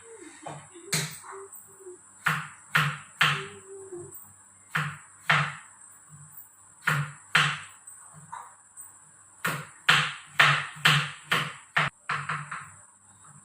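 Repeated knocks of kitchen food preparation by hand, a utensil striking a hard surface at an uneven pace of about one to two strokes a second, with short pauses between runs.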